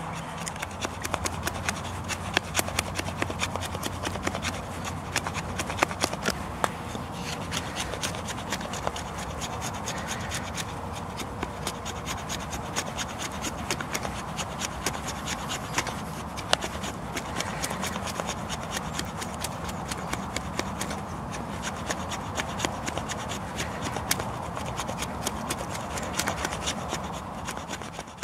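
Knife blade carving thin curled shavings off a stick of wood: a long run of short, irregular scraping strokes.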